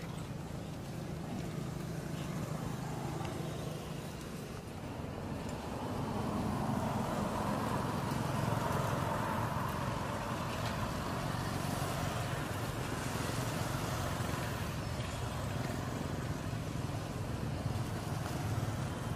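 A motor engine running steadily, growing louder about six seconds in and then holding.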